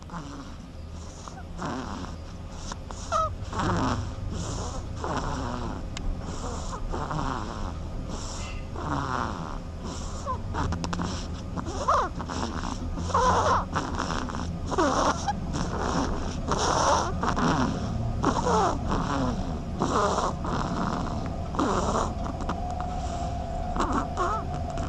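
A duckling snoring: short breaths repeating steadily, a little more than once a second.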